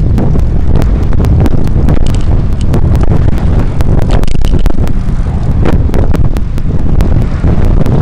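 Heavy wind buffeting on a bicycle-mounted action camera's microphone while riding, with a rapid series of light ticks. A car draws up alongside near the end.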